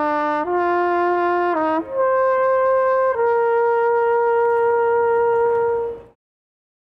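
Solo trumpet playing a short phrase of several notes, then one long held note that cuts off abruptly about six seconds in.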